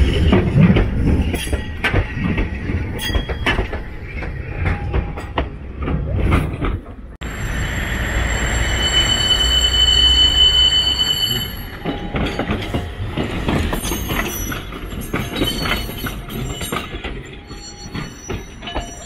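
Kagoshima City streetcars on grass-covered track. The first tram passes close with a low rumble and wheel clicks. About seven seconds in the sound cuts to a second tram rounding a curve: high, steady wheel squeal for several seconds, then clicks of wheels over the rails as it draws near.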